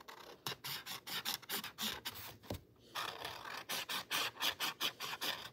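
Brush-tip marker rubbing back and forth on a textured canvas board in quick, short scratchy strokes, with a brief pause about two and a half seconds in.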